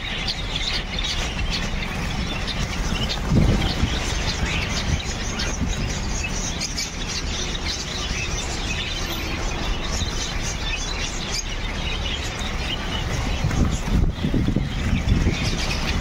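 Many caged small birds chirping and chattering together in a dense, continuous chorus of short high calls. There are low handling bumps about three seconds in and again near the end.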